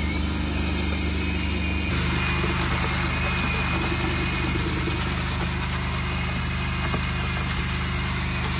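Handheld electric paddle mixer running steadily, its paddle churning through hot-mixed lime mortar: quicklime freshly slaked with water and still hot and steaming, mixed in while the reaction's heat lasts.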